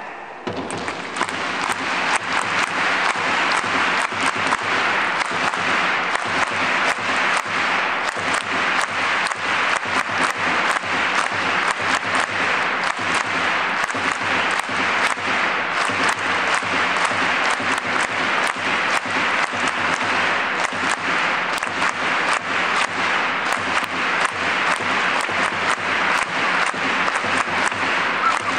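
A large stadium crowd of football supporters clapping their hands together, a dense, steady patter of claps that starts about half a second in.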